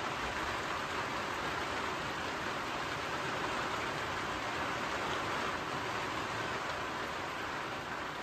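Steady rain falling, heard from inside a backcountry hut.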